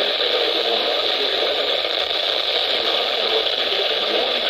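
Steady hiss of static from a weather radio receiver, even and unbroken.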